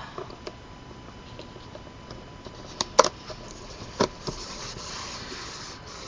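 Hands handling and rubbing patterned paper wrapped over a chipboard box top: soft paper rustling, with a few sharp taps about three and four seconds in, the one at three seconds the loudest.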